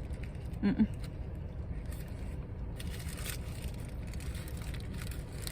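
A person chewing a bacon cheeseburger with faint mouth noises, giving a short hummed "mm" under a second in, over a steady low rumble.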